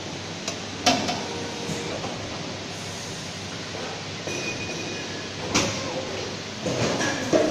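Injection moulding machine running with a steady hum and hiss, broken by three sharp knocks: about a second in, past the middle, and near the end.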